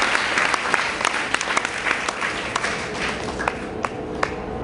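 Church congregation applauding, dense at first and thinning to a few scattered claps near the end.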